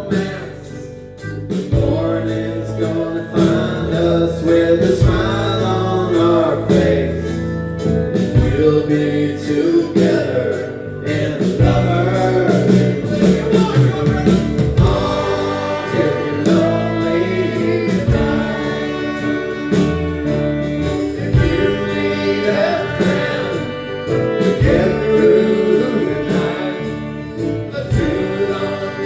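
Live band playing a song, with singing over the instruments.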